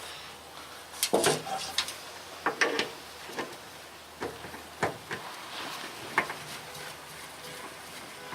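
Scattered light clicks and knocks, about eight spread over several seconds, from hands handling a spin-on oil filter and its mount while fitting new filters.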